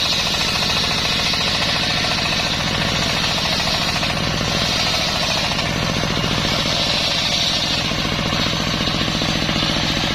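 A sawmill's circular saw running steadily under a rapidly pulsing engine, its blade cutting waru wood, with a hiss that is strongest near the start.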